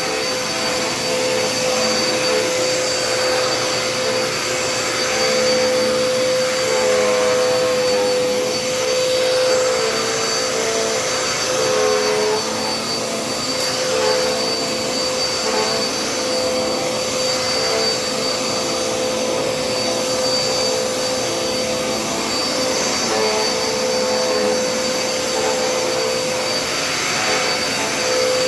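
Dirt Devil Endura Reach vacuum cleaner running steadily, with a constant motor whine. Its note dips briefly a couple of times as the nozzle works the floor.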